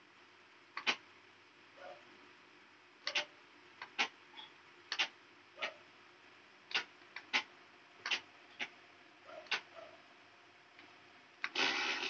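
Toy RC car transmitter's control levers clicking as they are pressed and released, about fifteen light clicks at uneven intervals. Near the end, a brief louder burst of noise.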